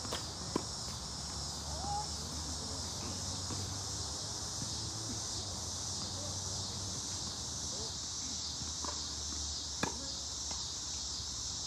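Steady, high-pitched chorus of crickets and other night insects. Over it come two sharp pops of a tennis ball struck by a racket, about half a second in and again near the end.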